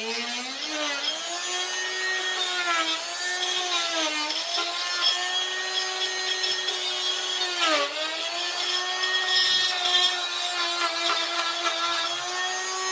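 Dremel oscillating multi-tool cutting into hard wood: a steady motor whine with a rasping saw sound over it. The pitch sags a few times under load, most deeply near the start and about eight seconds in.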